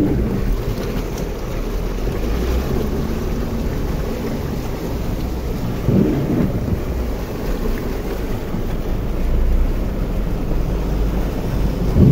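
Floodwater rushing and sloshing against the sides of a car, heard from inside the cabin as a steady low rumble, with louder surges about six seconds in and near the end.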